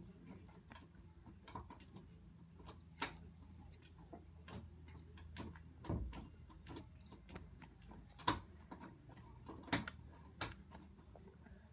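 Scattered light clicks and taps from handling and movement close to the phone, with a few sharper knocks and one duller thump about halfway, over a low steady hum.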